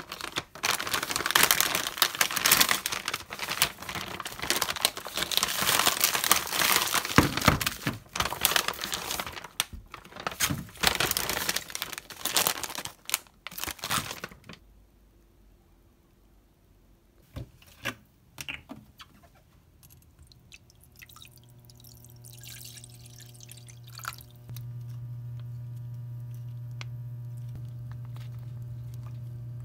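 Plastic food packaging crinkling and rustling as it is handled, loud and crackly for about the first half. Later, water pours into a pot, and a steady low electric hum from the cooktop sets in and steps louder a few seconds before the end.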